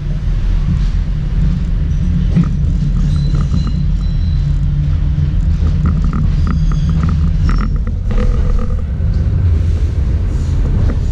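Interior of a Schindler Waggon AG Be 4/6 tram running along the track: a steady low rumble of wheels on rails and running gear. About six seconds in, a string of short high tones sounds over it.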